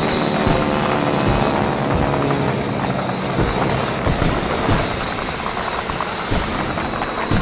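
A 1/12 scale RC car's electric drive whining as it drives over loose gravel, with the stones crunching and clicking under the tyres.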